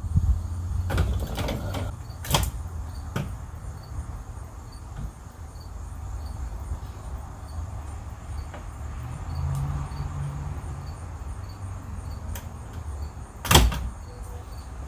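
Plastic interior trim around a car's shifter being worked loose and pulled out by hand: scattered clicks and knocks over a low rumble, with one loud knock near the end.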